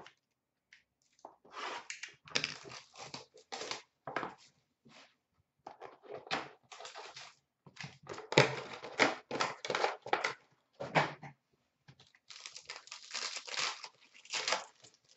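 Foil trading-card pack wrapper and box packaging being torn open and crumpled by hand: a string of irregular crinkly rustles and tears, busiest in the second half.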